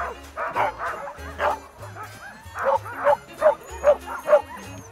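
A team of sled dogs barking and yelping excitedly in harness, about ten sharp calls in quick succession, some falling in pitch like yelps.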